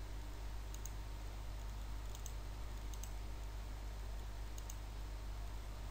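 A few faint computer mouse clicks, about four spread over several seconds, over a steady low electrical hum.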